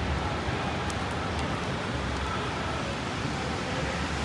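Steady rainy city-street ambience: a hiss of rain with traffic running on wet pavement.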